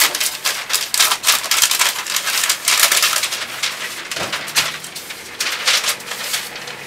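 Large sheet of chart paper rustling and crackling as it is lifted and pulled down off a wall.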